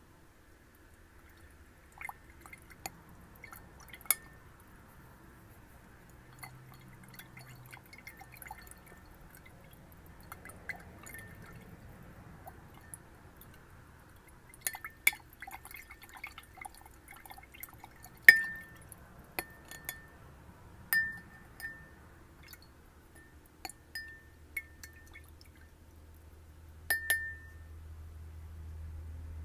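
A glass tapped irregularly, the sharper taps leaving a short clear ring at one pitch, with softer clicks and small water sounds between; the loudest tap comes about two-thirds of the way through.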